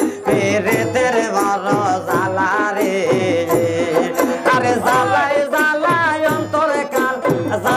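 Instrumental interlude of a Bengali folk song: a wavering melody line over a steady percussion beat, without singing.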